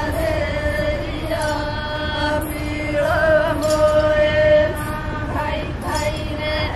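Group of women singing a Lambadi folk dance song together, a chant-like tune with long held notes.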